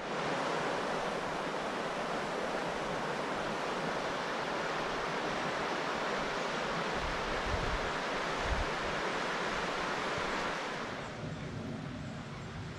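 River water rushing steadily, with a couple of low wind bumps on the microphone about seven and eight seconds in; about eleven seconds in it gives way to a quieter, calmer background.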